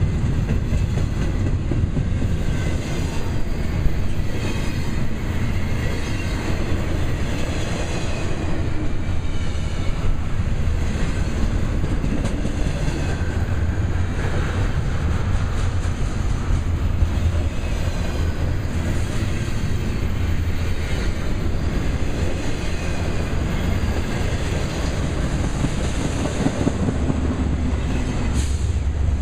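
Double-stack intermodal well cars of a freight train rolling steadily past: a continuous rumble of steel wheels on rail with clickety-clack over the joints and faint wheel squeal at times. Near the end a low diesel drone grows in as the mid-train locomotive draws near.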